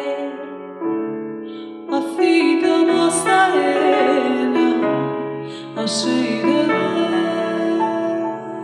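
Piano chords struck and left to ring, new chords entering about one, two and six seconds in, each fading slowly.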